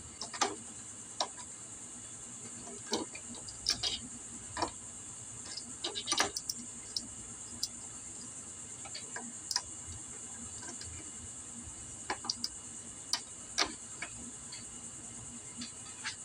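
Scattered, irregular light metallic clicks and clinks of a GY6 scooter engine's cam chain and camshaft sprocket being handled and fitted by hand, over a steady high hiss.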